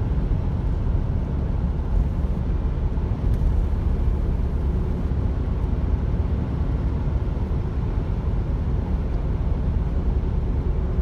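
Steady road noise of a car driving along a bridge, heard inside its cabin: an even low rumble of tyres and engine with no breaks.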